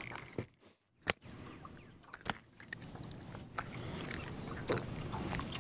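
Scattered small clicks and taps over a faint hiss as a freshly landed crappie is handled and unhooked. The sound drops out almost to silence briefly, just under a second in.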